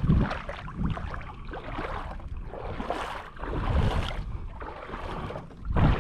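Water sloshing and splashing around a kayak hull in shallow water, in irregular surges, with wind gusting on the microphone.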